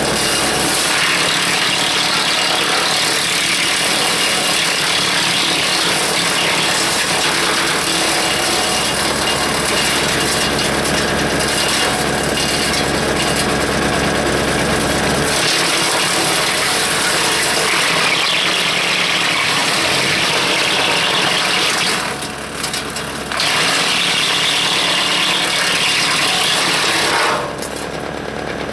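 Hanmey WCX5 PTO-driven wood chipper running off a tractor and chipping branches: a loud, dense, steady racket over the tractor engine. It eases briefly twice, about 22 seconds in and again near the end.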